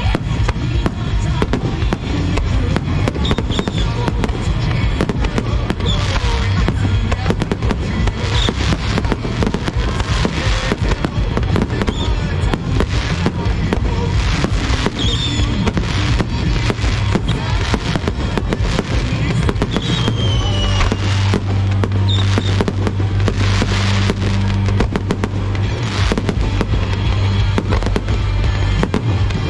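Fireworks bursting over and over in quick succession, with loud bangs throughout, while music plays underneath.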